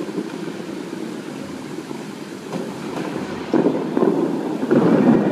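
Water jets of the Bellagio fountain rushing and splashing down onto the lake, with two louder surges, about three and a half seconds in and again near the end, as more jets shoot up.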